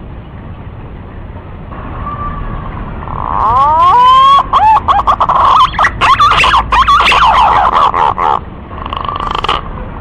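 Recorded punai (pigeon) lure call played loud: whistled notes that glide up and down, faint at first, then a dense broken run from about three seconds in that eases off near the end.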